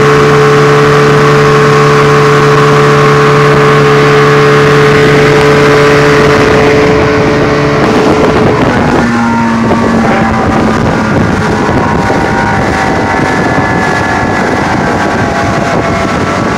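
A 125 hp Force two-stroke outboard running steadily at speed, with spray and wake rushing behind the boat. About halfway through the steady engine note drops back and wind and water rush take over, with the engine fainter underneath.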